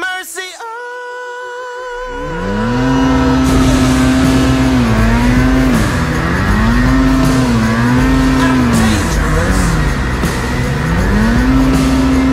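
Snowmobile engine revving up about two seconds in and running hard, its pitch dipping and climbing several times as the throttle is worked with the sled pushing through deep snow.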